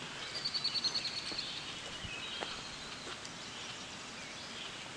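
Outdoor ambience by a pond: a bird gives a rapid, high-pitched trill near the start, followed by a few fainter chirps over a steady quiet background.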